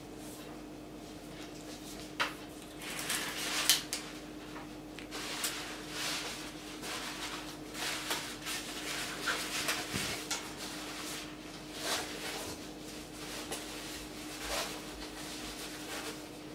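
A folded Xiaomi umbrella and its packaging being handled: fabric and plastic rustling with scattered clicks and knocks, the sharpest a little before four seconds in, over a faint steady hum.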